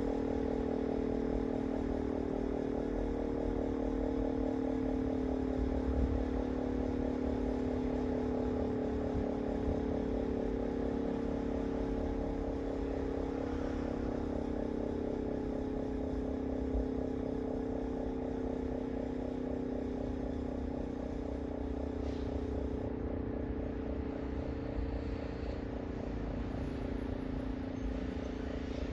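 Outdoor motor siren sounding the 6 p.m. time signal, holding a steady wail at one pitch, with a low rumble underneath.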